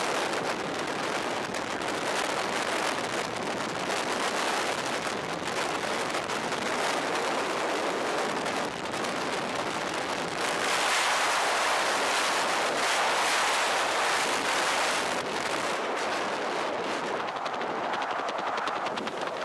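Freefall wind rushing and buffeting over an action camera's microphone, a dense fluttering rush that grows louder about ten seconds in and loses some of its hiss near the end.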